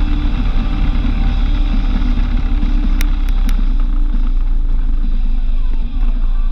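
A car driving along at road speed: a steady low rumble of engine and tyre noise, with three short, sharp clicks about three seconds in.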